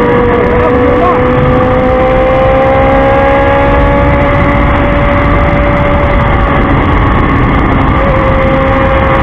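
Motorcycle engine running at steady highway cruising speed, its note rising slightly over the first few seconds, under heavy wind rush on the camera microphone.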